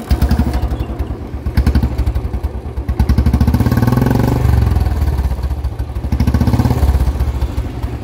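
Royal Enfield Bullet 350 Standard's single-cylinder engine breathing through a long-bottle 'bada Punjab' aftermarket silencer, firing up right at the start after a kick start in neutral and then revved up and down a few times, a fast run of exhaust beats.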